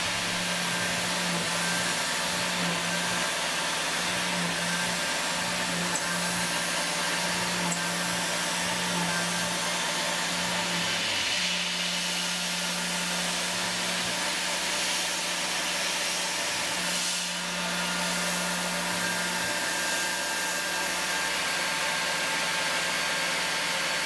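Tormach PCNC 770 CNC mill spindle running steadily while an end mill takes light finishing passes around an aluminium part, under a constant hiss of air from a mist-coolant nozzle. A steady hum sits under the hiss.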